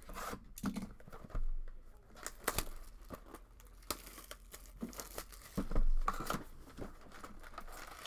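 Plastic shrink-wrap being torn and crinkled off a sealed box of trading cards: irregular crackling with louder rips about two and a half seconds in and around six seconds in.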